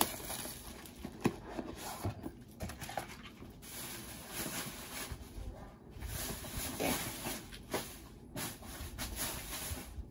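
A paper bag rustling and crinkling as packaging is handled and dropped into it, with scattered light knocks.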